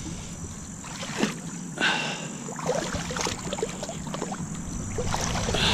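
A person wading through a shallow, muddy ditch in waders, the water sloshing and splashing irregularly with each step.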